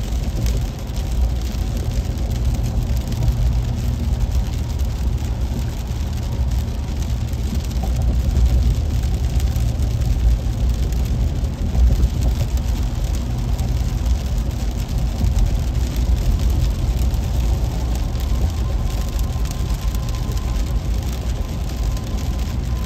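Steady low rumble of a car driving in heavy rain, heard from inside the cabin, with the hiss of tyres on wet pavement and rain on the car.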